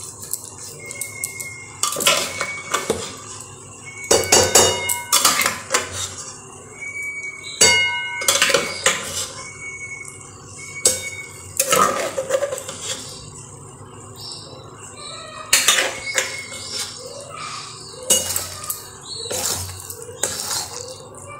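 A metal spatula scrapes and knocks against a metal kadai while potatoes and mashed chana dal are stirred. The clinks come irregularly all through, some leaving a short ring from the pan.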